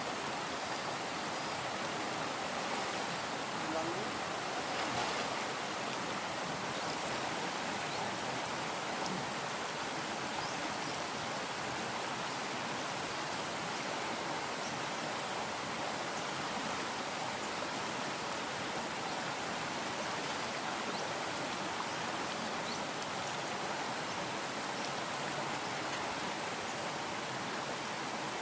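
Steady rushing of flowing stream water, an even noise that stays at one level throughout.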